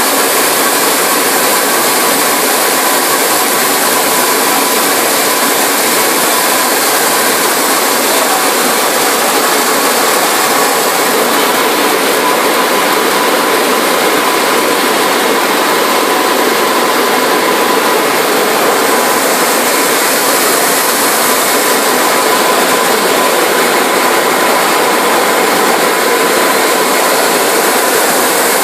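Fruit and vegetable brush and high-pressure spray washing machine running: a loud, steady hiss of machine and water noise with a faint steady whine.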